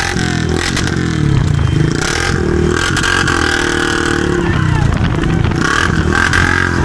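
Motorcycle engine running at road speed, its note rising and falling, with wind and road noise.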